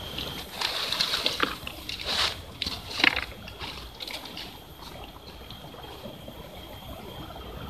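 Footsteps crunching and rustling through dry fallen leaves, uneven and loudest in the first three and a half seconds, then fading out. A creek trickles steadily underneath.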